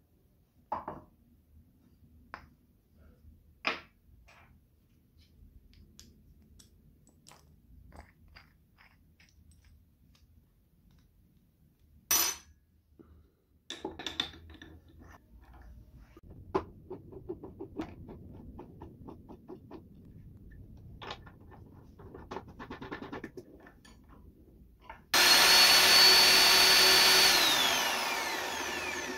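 Homemade drill press motor switched on abruptly, spinning a bare stacked-plywood sanding drum in its chuck with a steady high whine, then switched off and winding down with a falling whine. Before that, clicks, knocks and small rattles of the wooden drums being handled and fitted into the drill chuck.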